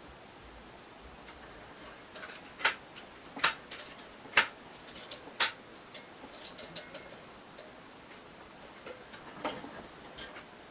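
Sharp clicks and taps of small hard objects being handled. Four loud ones come about a second apart, with lighter clicks between them, and a few more follow near the end.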